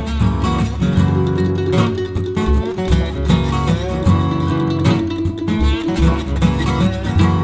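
Background music led by a plucked and strummed acoustic guitar over a bass line with a steady beat.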